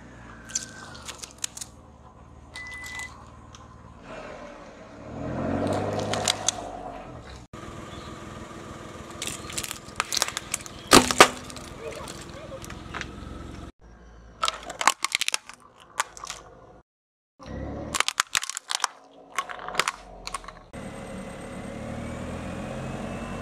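A car tyre rolling over and crushing small objects: crunching, then a run of sharp cracks and snaps as plastic disposable lighters break, the loudest about eleven seconds in. Near the end a squeak glides up and down as rubber balloons are pressed under the car.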